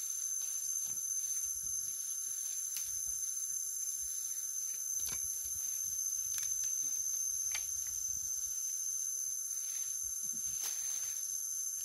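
Young mountain gorillas shuffling and tumbling through grass, making soft rustles and thumps, over a steady high-pitched insect drone from the forest.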